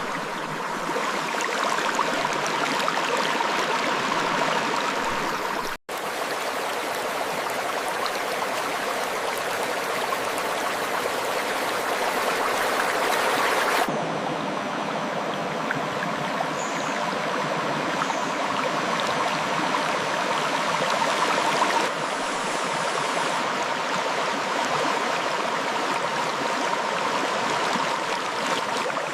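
River water flowing over rocks in a steady, even rush. It cuts out for an instant about six seconds in, and its tone shifts abruptly about halfway through and again later where recordings are joined.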